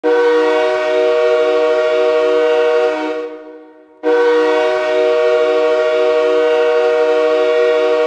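Calgary Wranglers hockey goal horn sounding a steady chord of several tones, the signal that the home team has scored. It sounds in two long blasts: the first fades out after about three seconds, and the second starts about four seconds in and is held.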